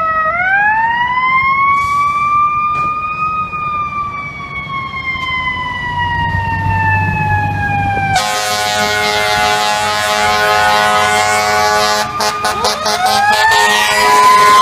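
Fire truck's mechanical siren winding up for about three seconds, then slowly falling in pitch. About eight seconds in, the truck's air horns sound steadily for about four seconds, followed by a few short blasts and the siren winding up again near the end.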